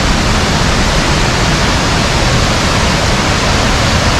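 Waterfall rushing: a steady, loud noise of falling water that does not let up.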